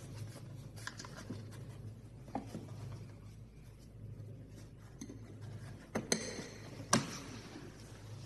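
Small parts being handled: faint scraping and rubbing, then a few sharp clicks about six and seven seconds in, over a steady low hum.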